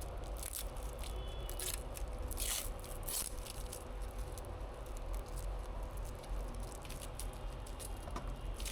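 Hands handling PC build parts: small clicks, scrapes and brief rustles of plastic and metal components, scattered irregularly over a low steady hum.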